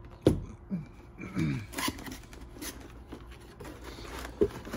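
Hands handling a camera box and its packaging: a sharp knock just after the start, rustling and small clicks, and another knock near the end.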